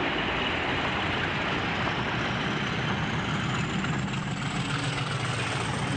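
Diesel locomotive's engine running steadily as the train approaches and passes close by, with a faint high whine rising in pitch from about halfway.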